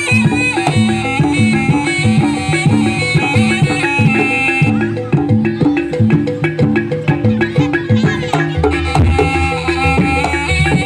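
Live Javanese traditional ensemble music of the gamelan kind, with hand drums and a repeating pitched percussion pattern. About halfway through, the high melody drops out and the drumming grows busier, and a deep bass comes in near the end.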